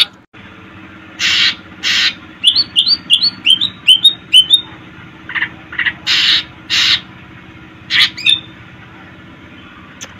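Cucak ijo (greater green leafbird) singing: pairs of harsh, rasping notes alternate with a quick run of about eight short rising chirps, and a couple more harsh notes and a chirp come near the end. A faint steady hum runs underneath.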